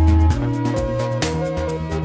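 Background music: a steady beat about once a second under a bass line and held melody notes.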